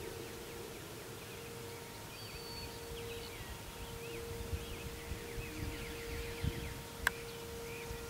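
Distant outdoor warning siren holding one faint, steady tone, which the recordist believes to be a Vortex siren sounding a minute-long alert. Birds chirp and trill over it, and there is one sharp click about seven seconds in.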